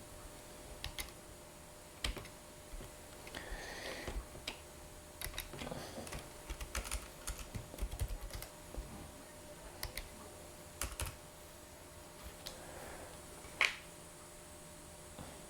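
Typing on a computer keyboard: irregular, scattered key clicks, with one sharper click near the end.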